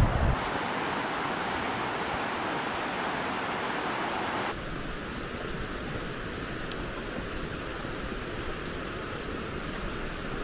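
Steady rushing of a rocky river. About four seconds in it drops abruptly to a quieter, steady outdoor hiss.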